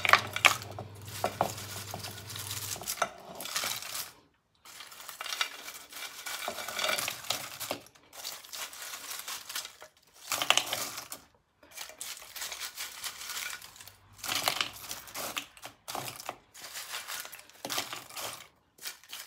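Crisp deep-fried namak para (salted flour-dough strips) clattering and rustling against each other and on tissue paper as they are scooped by hand and dropped into a bowl, in irregular handfuls with short pauses between.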